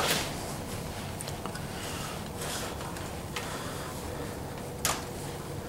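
Handling noise from a gloved hand working an LED bulb and its wire in a pipe fixture: soft rustling and scraping with a few small clicks. The sharpest click comes about five seconds in.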